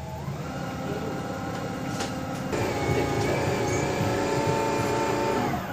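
Electric drive motor of a battery-powered glass-bottom boat whining with several steady tones. It grows louder about halfway through, then its pitch drops sharply at the very end.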